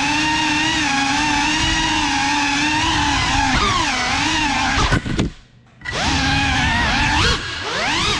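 FPV drone's motors and propellers whining, the pitch wavering up and down with the throttle. About five seconds in the throttle is cut and the whine drops away for about half a second, then spools back up with a rising whine.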